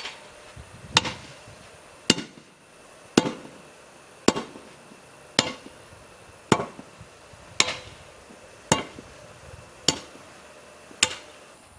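Hand tamper striking down on a limestone gravel paver base to compact it, in a steady rhythm of about one strike a second, eleven strikes in all.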